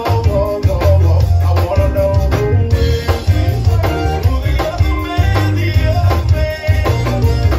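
Live zydeco band playing an upbeat number: accordion over a steady drum-kit beat, frottoir (rubboard) scraping the rhythm, electric bass and guitar.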